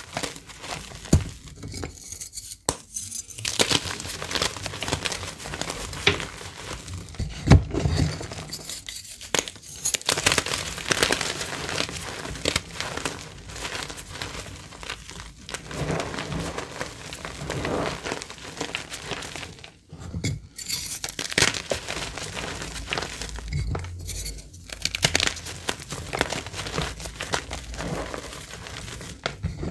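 Bars of reformed purple gym chalk being crushed and crumbled by hand into a tub of chalk powder: dense crunching and crackling, broken by a few brief pauses.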